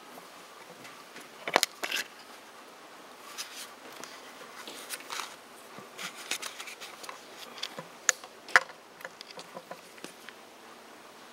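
Scattered knocks, clicks and scrapes with some rustling, loudest in two clusters about one and a half to two seconds in and about eight to eight and a half seconds in.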